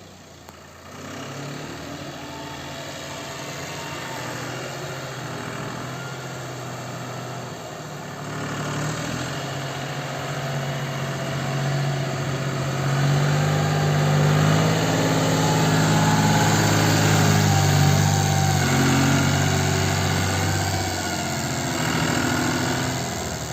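Bulldozer's diesel engine running steadily, growing louder after about a second, loudest through the middle and easing off near the end.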